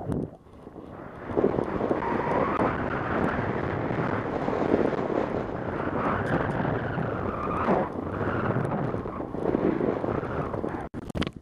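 Burton T7 snowboard sliding and turning through snow, a steady rushing scrape that swells and eases with the turns, mixed with wind on the helmet camera's microphone. It is quieter for about the first second.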